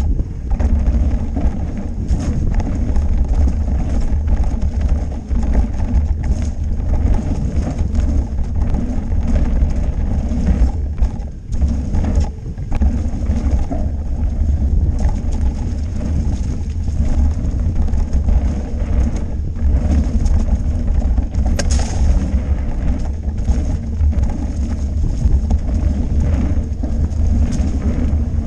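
Mountain bike rolling fast down a dirt singletrack, with heavy wind buffeting the camera's microphone as a constant low rumble. The bike rattles and knocks over the rough trail surface throughout.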